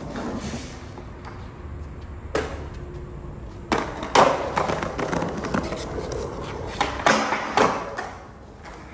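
Skateboard rolling on concrete, then the sharp clacks of a trick attempt and the scrape of the trucks grinding a metal obstacle. There are several hard knocks of the board, the loudest about four seconds in and two more near the end.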